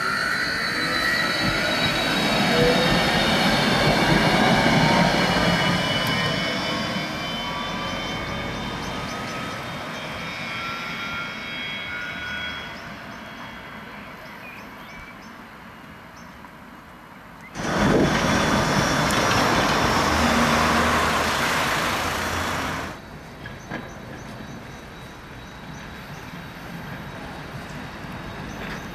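Articulated low-floor electric tram running past, its traction motors giving several falling whines over the rumble of its wheels on the rails. Later a loud rushing noise starts abruptly and cuts off about five seconds later.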